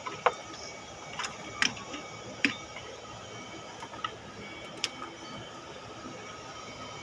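Scattered sharp metallic clinks and taps, about six over five seconds, from hand tools and parts being handled on a Hyundai engine during valve cover removal, over a steady background hum.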